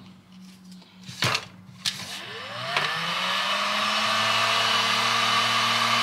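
Electric heat gun switched on about two seconds in after a few handling clicks: its fan spins up with a rising whine, then runs steadily with a blowing rush while it warms to about 500 degrees for shrinking heat-shrink tubing.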